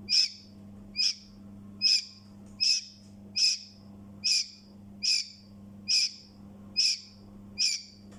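Newborn chick peeping loudly and repeatedly, short high falling peeps about once every 0.8 seconds, over a steady low hum.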